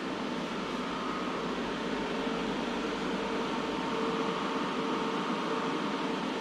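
A steady machine hum with an even hiss and a faint constant tone.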